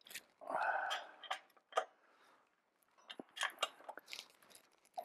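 Bicycle crank arm being tightened onto the bottom-bracket spindle with a wrench on its fixing nut: a short rustle, then several sharp, irregularly spaced metal clicks and scrapes of tool on crank.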